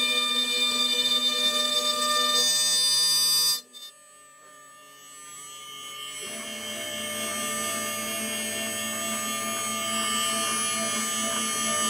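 CNC router spindle and motors running with a steady whine while carving relief in a wood panel. The sound cuts off suddenly about a third of the way in and stays low for a couple of seconds, then the machine is heard running again through the second half.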